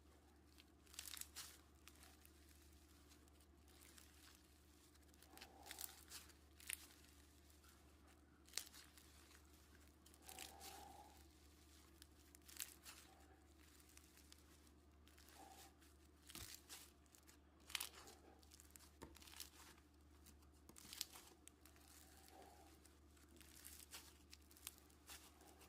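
Slime handled by hand: faint, irregular crackles and pops, a dozen or so small sounds spread out, over a low steady hum.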